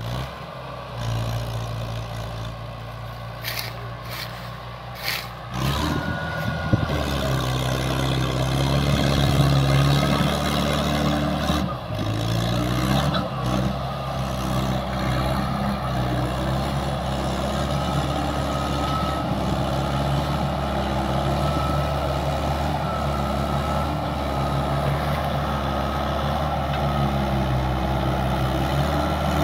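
Tractor diesel engine pulling a heavily loaded sugarcane trolley. It runs steadily, gets louder about six seconds in as it takes the load, and rises and falls in pitch a couple of times before settling into steady heavy running. A few sharp knocks come in the first few seconds.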